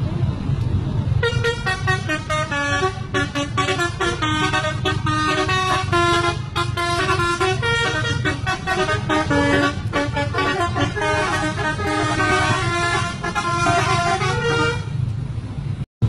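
Telolet horns, the multi-tone musical air horns of two buses, played together as a quick melody that jumps from note to note. They start about a second in and stop near the end, over the low rumble of the bus engines.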